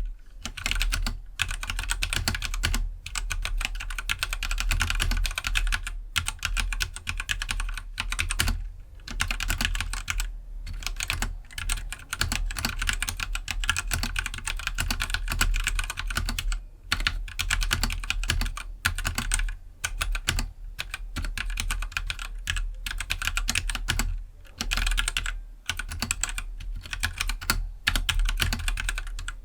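Continuous English typing on a stock Keydous NJ68 65% mechanical keyboard with Gateron Black linear switches: a fast, dense run of keystrokes broken by short pauses every few seconds.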